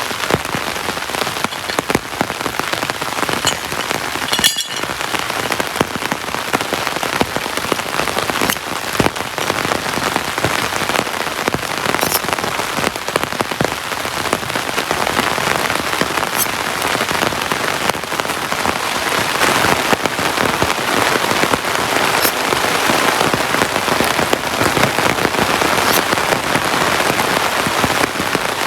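Heavy tropical rain falling steadily, with the sharp ticks of single large drops here and there. It grows a little heavier in the second half.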